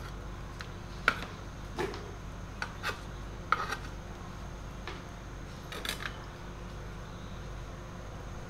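Light knocks and clicks of a kitchen knife, lime pieces and utensils being picked up and set down as a plastic cutting board is cleared, over a steady low hum. The knocks come scattered through the first six seconds, then only the hum remains.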